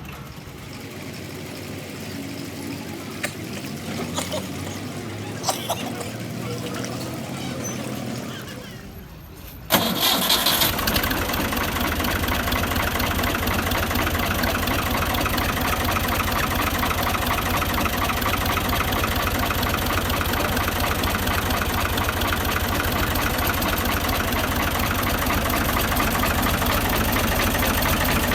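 A quiet stretch with a few clicks, then an engine starts suddenly about ten seconds in and keeps running steadily at idle. This is the engine started after the repair of its bad noise.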